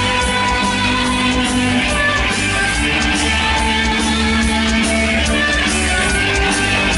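Rock music played through a sound system: an instrumental passage with electric guitar and a steady drum beat, no vocals.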